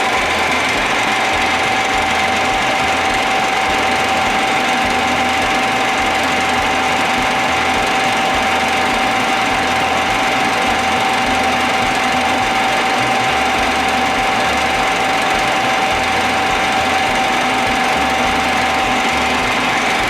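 1906 F E Reed metal lathe running under power: a steady mechanical running noise with a steady high whine throughout.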